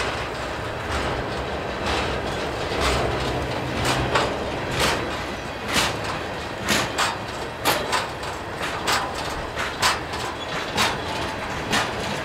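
Union Pacific train rolling slowly at about 5 mph, its wheels and cars giving irregular sharp clacks over a steady rumble. A low drone sounds in the first few seconds.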